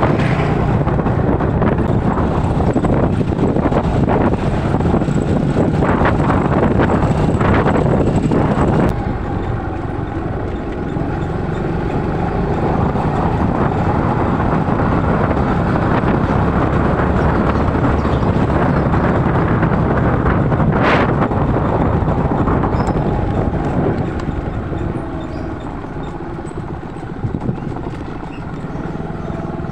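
Motorcycle riding on the road, its engine running under steady wind noise on the microphone. The noise drops about nine seconds in and again near the end.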